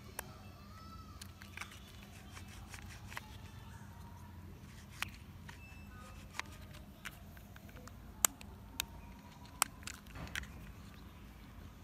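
Hard plastic toy backhoe parts clicking and tapping as they are handled and pulled apart: about ten sharp, scattered clicks over a low background rumble.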